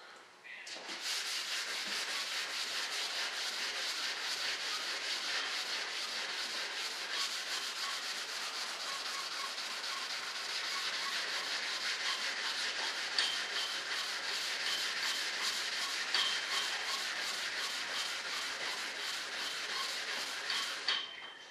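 Hand sanding of a primed, guide-coated fiberglass model-jet wing: sandpaper rubbed back and forth over the surface in quick continuous strokes, taking off the guide coat so that low spots show up. It starts about a second in and stops just before the end.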